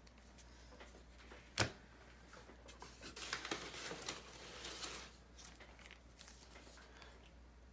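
Crumpled kraft packing paper rustling and crinkling as a hand digs through it inside a cardboard box, faintly. A single sharp tap about a second and a half in is the loudest sound.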